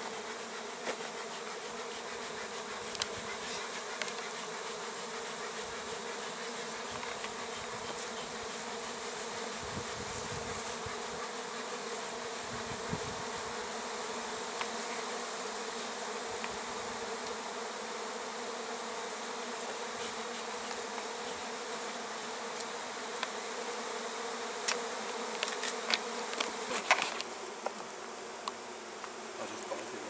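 Honeybees from a feral colony in a house wall buzzing in a steady, dense drone, the colony stirred up by smoke as its nest is opened. A few sharp clicks come through near the end.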